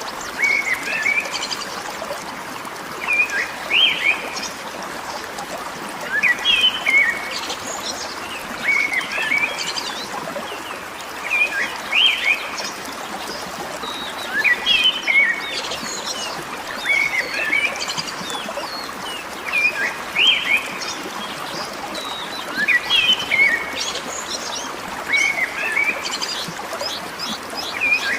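A songbird repeating the same short burst of quick chirping notes about every two and a half to three seconds, over a steady wash of running water.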